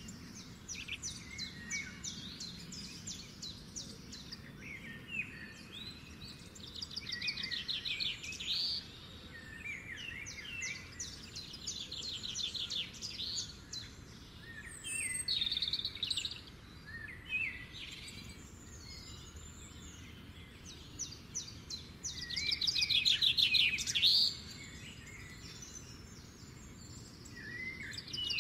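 Songbirds singing: short phrases of rapid trills and chirps every few seconds, over a faint low rumble of background noise. The loudest is a trill about two seconds long, roughly three-quarters of the way through.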